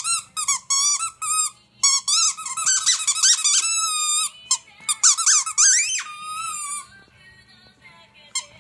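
Fuzzy orange squeaky toy squeaking over and over as a miniature schnauzer chews it: a quick run of short squeaks, then longer wavering squeaks, stopping about seven seconds in, with one last short squeak near the end.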